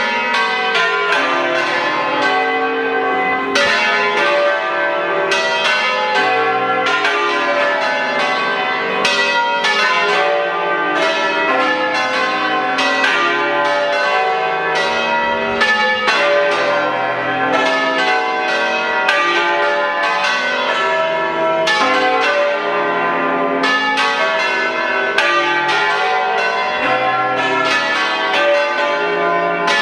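Peal of a set of eight church bells in C, cast by Pasquale Mazzola in 1879, swinging and striking in quick overlapping succession so that the ringing tones run together without a break.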